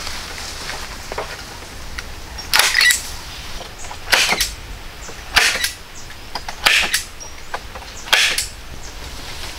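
A hand tool chopping wood in a steady rhythm: five sharp blows about a second and a half apart, starting a couple of seconds in.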